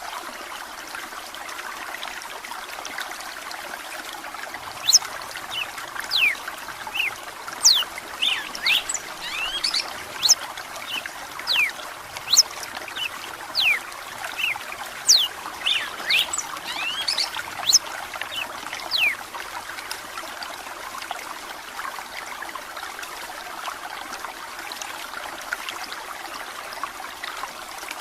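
Steady trickle of running water, with a red-cowled cardinal's quick, sharp whistled notes coming thick and fast in the middle and thinning out toward the end.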